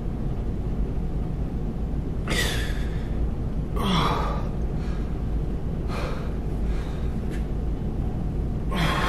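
A man's sharp, forceful breaths while flexing in posing, about five of them a second or two apart, over a steady low background rumble.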